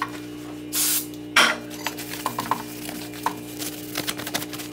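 Gloved hands handling a bent aluminum sheet part on a wooden block: a short hiss about a second in, a sharp brushing scrape just after, then light clicks and taps. Under it, background music holds a steady chord.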